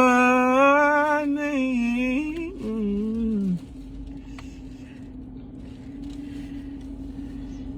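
A man sings a long held note with a slight waver for about two and a half seconds, then a shorter, lower sung phrase. After that only a faint steady hum remains.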